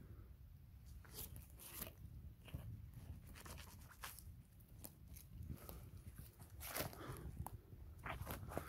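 Scattered rustling and crackling of dry leaves and twigs in brush undergrowth as someone pushes through and handles it, with a few louder crunches.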